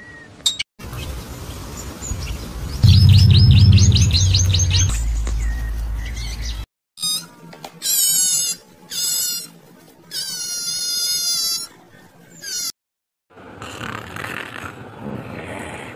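A string of short animal-sound clips cut together. First come quick repeated bird-like chirps over a loud low hum, then high wavering calls in four bursts, then a rough raspy sound near the end.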